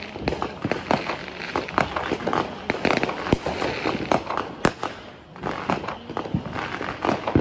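Many fireworks and firecrackers going off around the area: an irregular string of sharp cracks and pops, several a second, over a steady crackle.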